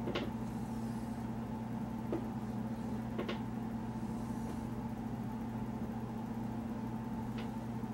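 A steady low hum, with a few short clicks and faint scratching of a dry-erase marker drawing lines on a whiteboard.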